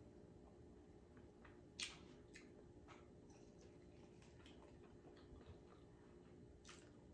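Quiet chewing of fried chicken: a few faint, sharp mouth clicks and crunches, the clearest about two seconds in, over near silence.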